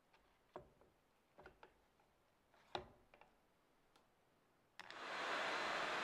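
Hand-handling clicks and knocks as a Virutex wood-brushing machine is put together. About five seconds in, the machine is switched on and runs up to a loud, steady rushing whir.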